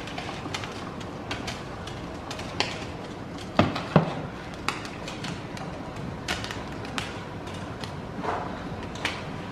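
Cookware knocking and clinking on a glass-top stove as a pan of butter sauce is poured out and shifted. A scattering of light knocks, with a louder pair three and a half to four seconds in, over a steady background hum.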